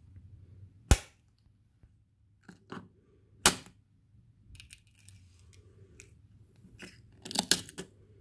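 Plastic snap rat trap firing shut on a raw egg: a sharp snap about a second in and another sharp crack about two and a half seconds later, as the jaw smashes the eggshell. Smaller clicks follow, then a burst of clattering plastic and shell clicks near the end as the trap is handled.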